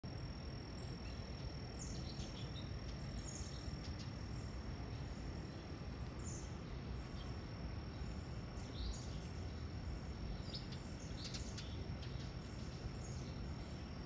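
Outdoor woodland-edge ambience: small birds chirping now and then over a steady high insect drone and a low background hum.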